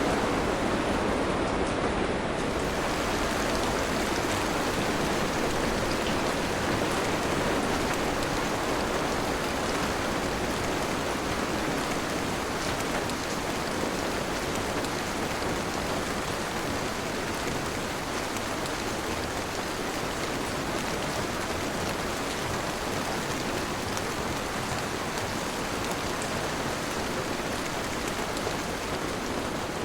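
Steady rain falling, a dense even hiss with no thunder claps, growing slightly softer over the stretch.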